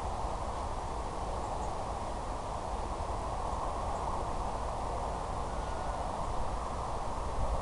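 Steady rushing noise with a low wind rumble on the microphone.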